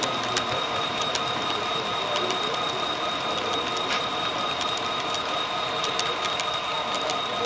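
Model freight train of reefer cars rolling past close by: a steady mechanical whir from wheels and motor, with a steady high whine and scattered sharp clicks of wheels over the rail joints.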